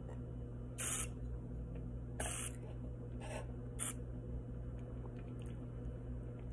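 A taster slurping air through a mouthful of red wine: four short hissing slurps within about three seconds, the last ones briefly fainter, over a steady low hum.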